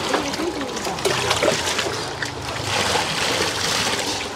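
Water splashing and trickling steadily, with faint voices in the background.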